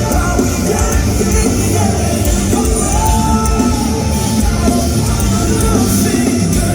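Rock band playing live, loud and steady, with a melodic line rising and falling over the full band.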